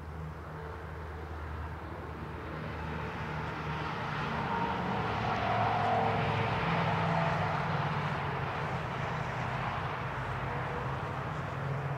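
An aircraft flying past, heard as a steady broad engine noise with a low hum that swells to its loudest about halfway through and then eases off a little.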